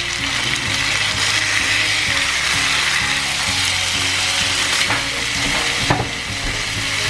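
Stuffed, breaded chicken breasts frying in olive oil in a skillet, a steady loud sizzle throughout. About five and six seconds in come two sharp knocks as a breast is flipped over with a spatula.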